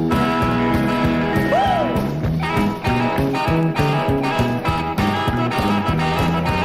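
Up-tempo rock-and-roll boogie band playing an instrumental break: a steady drum beat and repeating bass line under a lead instrument, with one note bent up and back down about one and a half seconds in.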